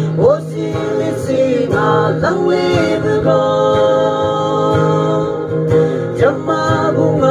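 Singing accompanied by an acoustic guitar, performed live into a microphone; the sung notes are held and slide between pitches.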